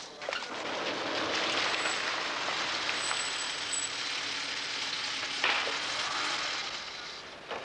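A BMW saloon's tyres rolling over cobblestones as it pulls up, a steady hiss that fades out near the end, with a short clack about five and a half seconds in.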